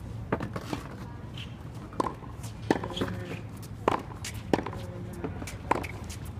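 Tennis balls struck by rackets and bouncing on a hard court during a practice rally: sharp pops every second or so, some quick pairs of hit and bounce.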